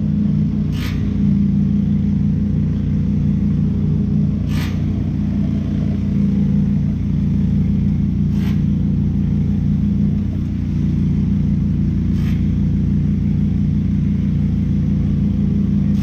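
Heavy equipment engine running steadily at a constant speed, with a short faint click about every four seconds.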